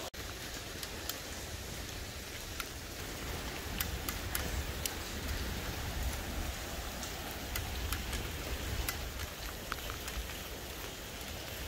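A bicycle ride on a wet road: a steady hiss with low wind rumble on the microphone and scattered light clicks.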